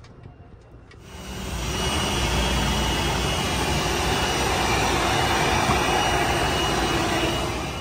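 Car wash vacuum running with a loud, steady rush of air while a pickup's interior is vacuumed, starting about a second in.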